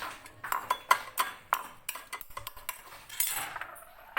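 A spoon clinking and scraping against a bowl in a quick run of light, ringing clinks, with a short scrape about three seconds in, as the steamed honey-and-herb syrup is spooned out into portions.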